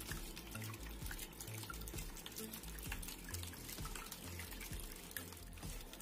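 Water trickling and splashing as a thin stream falls from a spout into the small basin of a cement tabletop waterfall fountain, with scattered drips.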